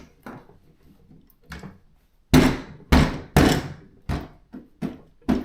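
A series of loud thuds and knocks, about eight in all, with the three loudest close together in the middle.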